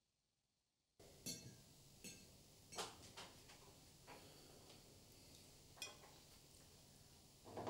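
Total silence for about a second, then forks clinking against plates during a meal: a loose scatter of short, light clinks, one every second or so.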